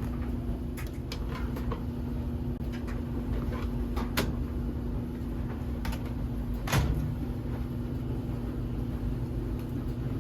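Scattered clicks and light knocks from handling laundry products and a washing machine, with one louder knock about seven seconds in, over a steady low hum.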